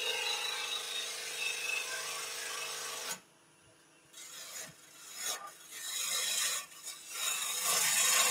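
Wood lathe spinning a workpiece while a turning tool cuts it: a steady cutting hiss over a steady hum. About three seconds in the sound cuts off abruptly, then returns as a series of short scraping cuts, each lasting under a second.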